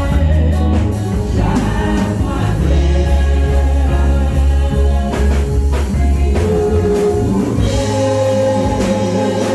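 Gospel worship band and singers performing a song together, with a strong bass line under the voices.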